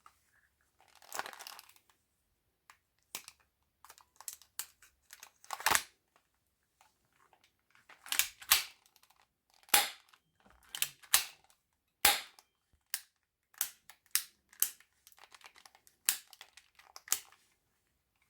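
Airsoft replica guns being handled: an irregular series of sharp clicks and clacks, some louder than others, with a brief rustle about a second in.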